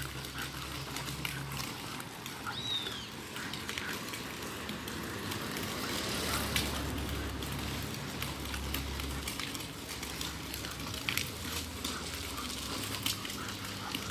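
Street ambience during a handheld walk with a dog on a leash: an uneven low rumble with scattered light clicks and rustles, and one brief high falling chirp about three seconds in.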